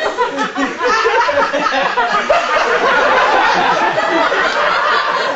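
A live audience laughing loudly and at length.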